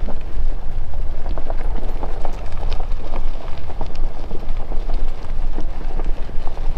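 Ford Bronco driving slowly down a dirt and gravel track: tyres crunching and popping over small stones, with many irregular clicks over a steady low rumble of engine and road noise.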